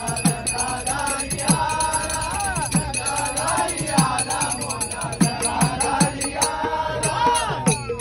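A group of men singing a Marathi devotional bhajan together, over jingling hand cymbals and a drum keeping a steady beat. Near the end the voices slide down as a sung line closes.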